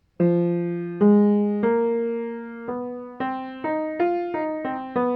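Piano playing a short phrase from a bebop-style etude in F: about a dozen notes and two-note chords struck one after another, each fading until the next.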